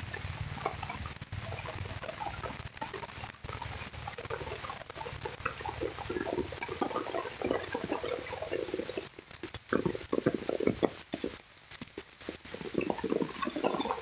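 Steady rain falling on vegetation, with irregular gurgling of running water that grows louder through the second half. A few sharp knocks come about ten seconds in.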